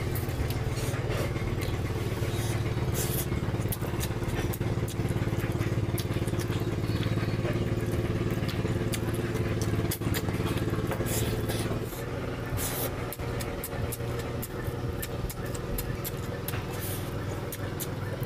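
Wet chewing and mouth clicks of a person eating curry-soaked chicken by hand, over a steady low mechanical drone that drops in level about two-thirds of the way through.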